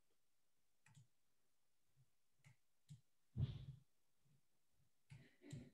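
Near silence with a few faint, scattered clicks and knocks, the loudest about three and a half seconds in.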